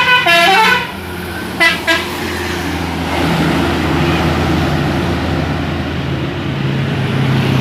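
A tour bus's telolet musical air horn (a DAV Basuri horn module) plays the end of a short multi-note melody in stepped pitches, then two short notes about a second and a half in. After that the bus engine runs steadily as the bus goes by.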